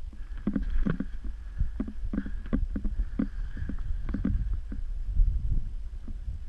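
Wind rumbling on the microphone, with a run of irregular short scuffs and crunches, about two a second, from movement in snow.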